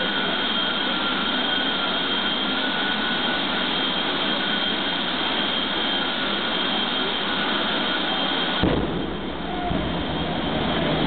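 Jet funny cars' turbine engines running at idle with a steady high whine over a loud rush. Close to nine seconds in, the whine gives way to a sudden deeper, louder blast as an afterburner lights.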